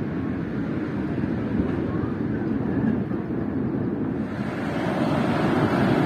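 Sea surf: a steady rush of water, with a wave swelling louder about four seconds in.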